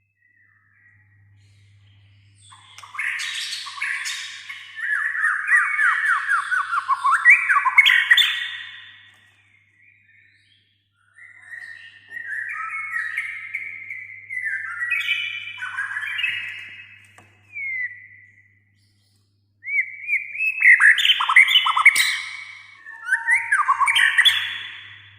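White-rumped shama singing loudly in three long runs of varied song, one after another, with brief pauses between them. The song mixes whistled phrases with quick strings of repeated notes. A faint low hum lies underneath.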